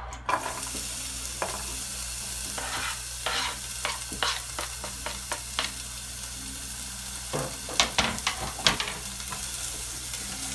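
Chopped onion sizzling steadily as it hits hot lard in a saucepan, with short scraping strokes as a knife pushes the onion off a plastic cutting board. A few louder knocks come around eight seconds in.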